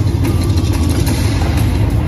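The show's bass-heavy soundtrack playing loud through outdoor loudspeakers, heard as a steady low rumble with a hissing wash on top.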